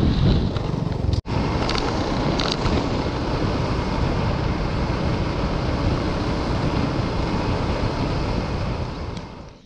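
Wind rushing over the microphone and a small motor scooter's engine running while riding along a road. The noise cuts out for an instant about a second in and fades away near the end.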